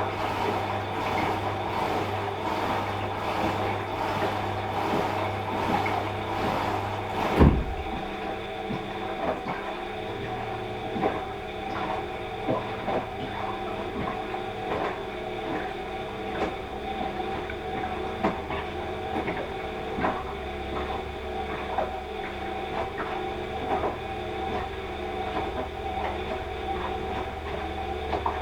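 Washing machine running through its wash, a steady motor hum with a regular pulse about twice a second. A single loud thump comes about seven seconds in; after it the pulse stops and the machine keeps humming with scattered clicks and knocks.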